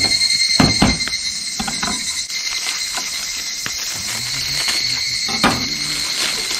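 A wooden cutting board knocks down onto a metal camp table, followed by a few smaller knocks and the rustle of a plastic bag of green peppers being cut open and handled. Underneath, a steady high insect chorus carries on.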